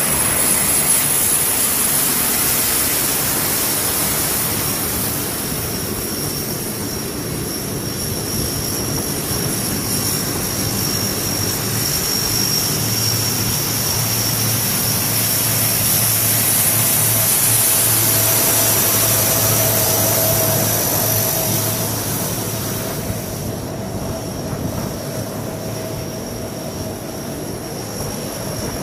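C-130 Hercules four-engine turboprops taxiing, propellers spinning: a steady drone with a high-pitched turbine whine, growing louder a little past the middle as an aircraft nears, then easing off toward the end.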